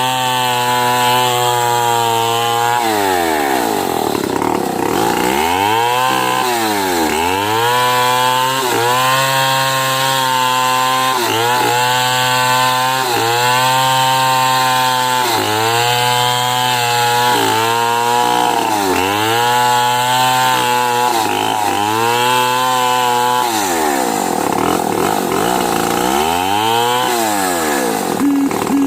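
Two-stroke chainsaw ripping a medang log lengthwise, the engine running at high revs. Its pitch repeatedly drops and climbs back every two seconds or so, with a longer dip about three-quarters of the way through.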